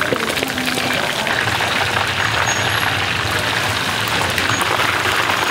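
Battered chicken pieces deep-frying in a large wok of hot oil: a steady, dense crackling sizzle.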